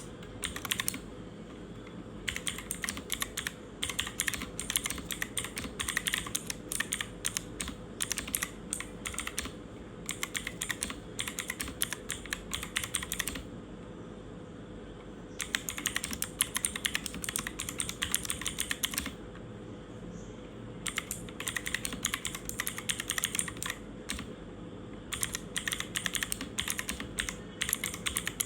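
Typing on a mechanical keyboard with clicky switches: fast runs of sharp key clicks, broken by pauses of about two seconds roughly halfway through and again later.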